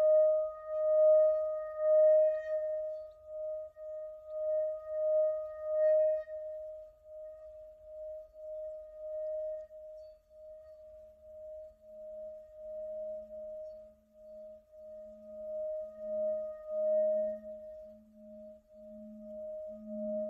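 Hammered Tibetan singing bowl struck once with a padded mallet, ringing with a steady, wavering hum. About halfway through, the mallet is circled around the rim and a deeper tone builds up beneath it, swelling in slow pulses.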